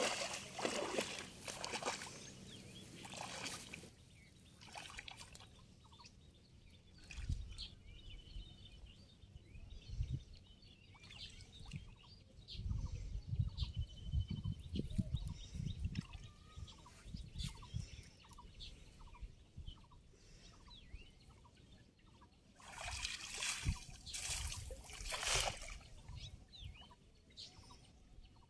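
Shallow water splashing and sloshing as a man wades and gathers a wet cast net, with low thuds of his legs moving in the water. Near the end a longer, louder burst of splashing comes as the net is thrown and lands on the water. Faint short calls repeat steadily in the background.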